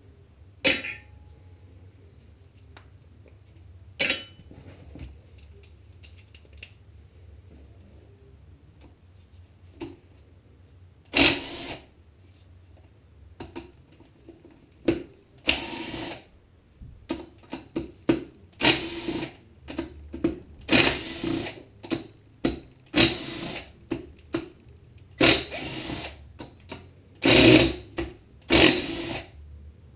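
Cordless power driver with a socket spinning out the cylinder-head bolts of a Tecumseh HM80 engine in many short, loud bursts that start about a third of the way in. Before that there are a couple of sharp metal clicks.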